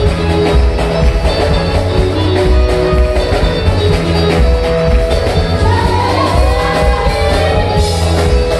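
Live church praise band playing upbeat music with a steady bass and drum beat, guitar and keyboard, and singing over the hall's sound system.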